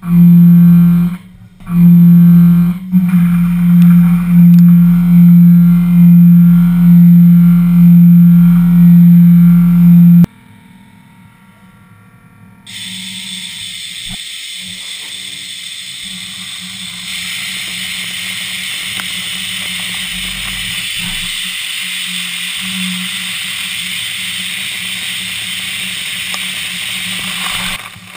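Loud distorted electric guitar music with a heavy repeating low note, cutting off suddenly about ten seconds in. A couple of seconds later comes the steady hiss of a CNC milling machine cutting with coolant flowing, which gets louder about two-thirds of the way through.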